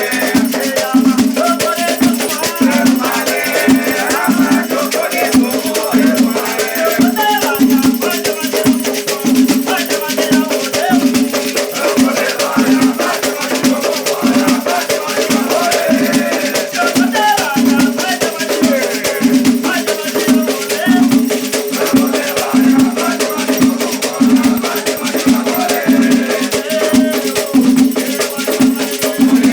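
Afro-Brazilian Batuque ceremonial music: voices singing over rattles shaken in a steady rhythm, with a regular pulsing beat beneath.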